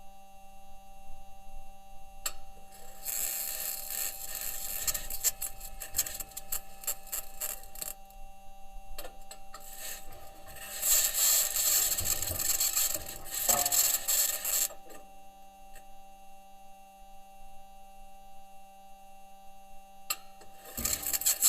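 Perseverance Mars rover driving, its metal wheels scraping and grating over rock in two long stretches, with a third starting near the end. Steady electrical hum tones run underneath throughout.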